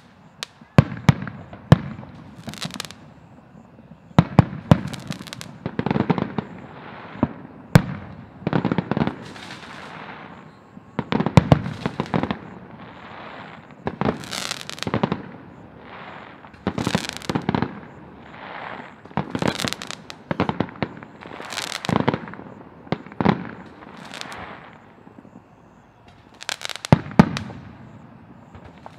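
Aerial fireworks shells bursting: a long string of sharp bangs, several close together at times, with hissing and crackling between them.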